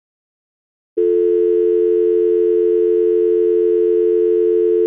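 Steady electronic tone like a telephone dial tone, added as a warning sound effect. It starts abruptly about a second in, holds one unchanging pitch and cuts off sharply near the end.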